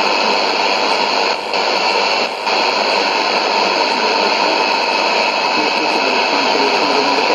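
Shortwave AM reception on 15560 kHz from a Sony ICF-2001D receiver's speaker: a steady hiss of static with a weak voice broadcast almost buried in it. The noise dips briefly twice, about a second and a half and two and a half seconds in.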